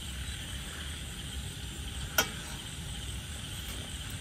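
A steel pot of shabu broth heating on a portable gas stove, with a steady hiss and simmer as it comes up to the boil. There is one sharp click about two seconds in.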